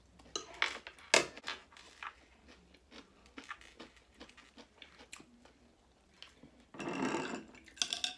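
Mukbang eating sounds close to the microphone: crunchy bites into a pickled cucumber and chewing, with scattered sharp clicks, the loudest about a second in. A denser rough noisy stretch lasting about a second comes near the end.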